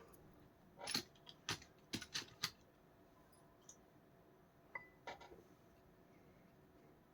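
Sharp clicks and clinks of small hard parts being handled during keyboard and mouse cleaning. A quick run of five or six comes about a second in, then a single clink with a brief ring a little past the middle, followed by a few softer clicks.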